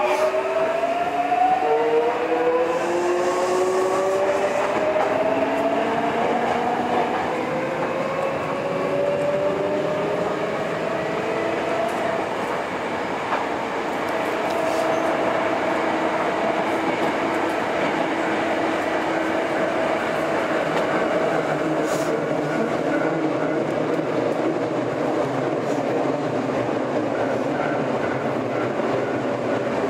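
Hankyu 7300 series subway train's VVVF inverter motors whining in tones that rise in steps over the first dozen seconds as the train accelerates, then settling into a steady tone as it runs on through the tunnel with wheel and rail noise, heard from inside the car.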